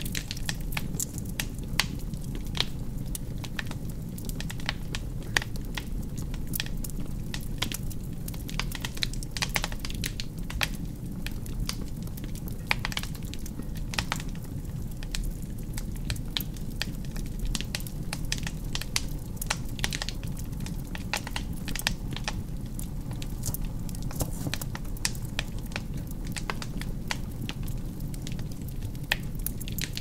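Wood fire burning in a fireplace: irregular crackles and pops from the burning logs over a steady low rumble of the flames.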